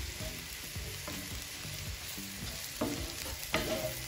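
Sliced mushrooms and onion sizzling in a hot frying pan as a wooden spoon stirs and tosses them, with a couple of sharper clacks of the spoon against the pan about three seconds in. They are just starting to sauté.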